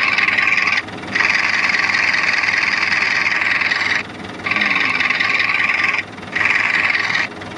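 A recording of a boat's inboard diesel engine running, played back through a phone's speaker, as it sounded before a hydrogen carbon-cleaning treatment, while still fouled with carbon. The sound breaks off briefly three times.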